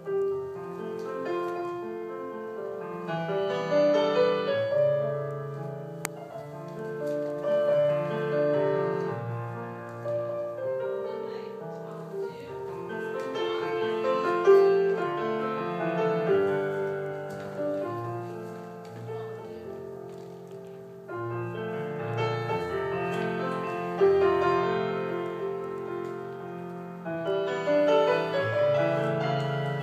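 Ballet-class piano music, classical in style, playing continuously and swelling and easing in loudness in phrases of a few seconds.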